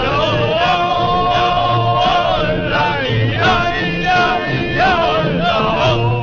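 Music with men singing long, held notes over an instrumental backing.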